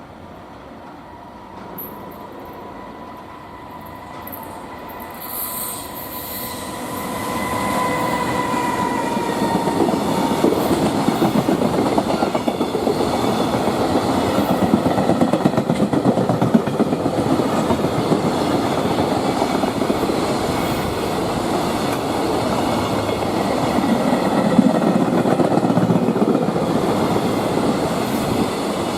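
A freight train passing: a thin steady whine as it approaches, then from about seven seconds in a loud, continuous clatter of container wagon wheels over the rail joints.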